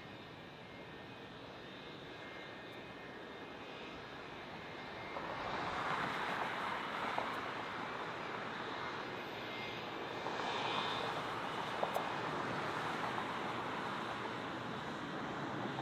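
Jet airliner engines, a faint high whine at first, growing louder about five seconds in and staying loud with uneven swells.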